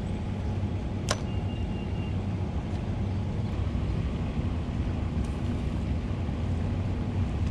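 A steady low outdoor rumble, with one sharp click about a second in.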